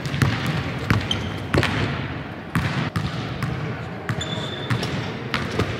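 Basketballs thudding on a hardwood court in an empty arena, irregular bounces a fraction of a second to a second apart, with a short high squeak about four seconds in.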